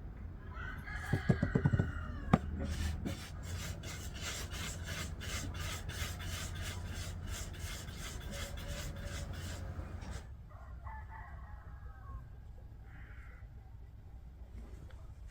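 A rooster crows about a second in, followed by a rhythmic scraping or rubbing, about three strokes a second, that stops about ten seconds in; fainter clucking follows.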